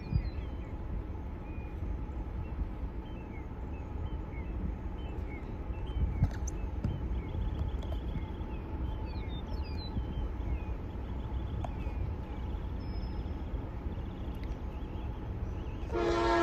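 Scattered bird chirps over a low wind rumble; near the end a train horn starts blowing loudly, a chord of several steady notes.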